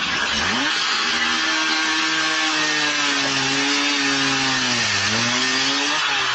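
Handheld angle grinder spinning up and cutting metal: a steady whine that sags slowly and dips sharply about five seconds in as the disc bites, then recovers and stops near the end, over a steady background hiss.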